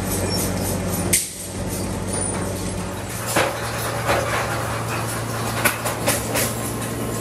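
Workshop machinery running with a steady hum, with a few sharp knocks scattered through.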